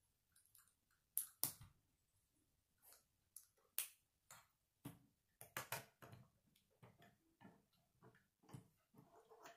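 Plastic K'nex rods and connectors clicking as they are snapped together by hand, with pieces tapping on a wooden tabletop: a scatter of short, sharp clicks at uneven intervals, loudest about a second and a half in and again around the middle.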